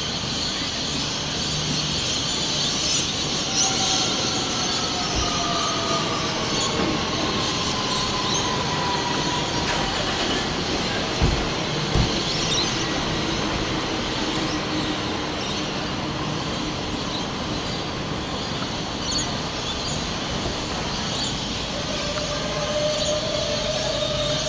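Sydney Trains double-deck electric suburban train running past a station platform: a steady rumble and hiss of wheels on rail with a whine that falls in pitch, and two sharp thumps about halfway through. Near the end another whine comes in and holds.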